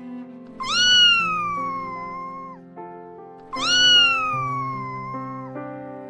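Cat meowing: two long drawn-out meows about three seconds apart, each rising quickly then sliding slowly down in pitch, over steady background music.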